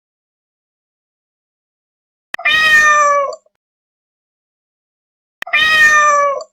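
Domestic cat meowing twice: two matching meows about three seconds apart, each about a second long and sliding slightly down in pitch.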